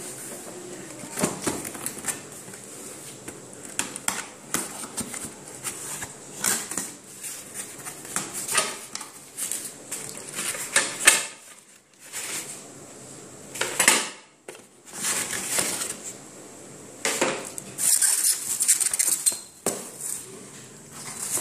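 Cardboard box and its packaging being handled during unpacking: irregular scraping, rustling and knocking as flaps are opened and foam and plastic-wrapped parts are pulled out, with a longer rustle about three-quarters of the way through.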